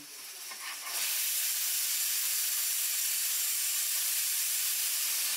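Steam hissing out in a loud, steady jet, rising from a softer hiss about a second in and cutting off suddenly at the end.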